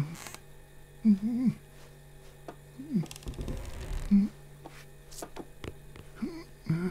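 Short nervous whimpers and murmurs from a frightened cartoon man, coming several times, over a low steady hum, with a brief scraping rustle about three seconds in.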